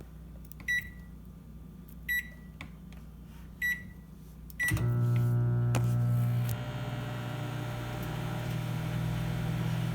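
Microwave oven keypad beeping four times as the time is keyed in and started, then the microwave starts running with a steady low hum.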